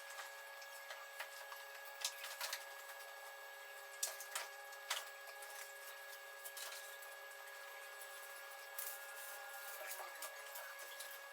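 Faint steady hum made of several held tones, with a scattered handful of light clicks and taps.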